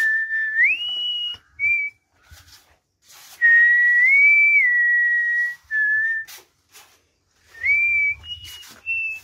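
A person whistling a tune: held notes that step up and down in pitch, in a few phrases with pauses between, the longest about two seconds. A few sharp clicks fall between the phrases.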